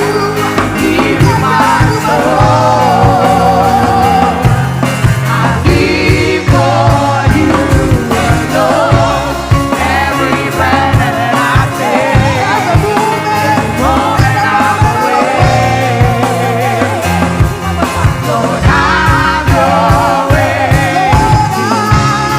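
A worship band playing a song, with voices singing over the instruments and a steady bass and drums underneath.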